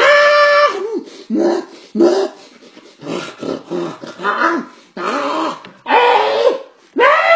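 A man making animal cries with his own voice, loud dog-like yelps and growls: one held call at the start, a run of short ones, then longer calls near the end.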